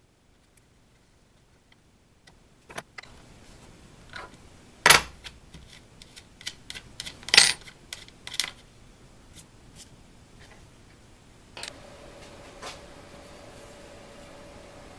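Sharp metallic clicks and clinks of small screws and hand tools handled on a fixture board, scattered and irregular, the loudest two about five and seven seconds in. A faint steady hum comes in near the end.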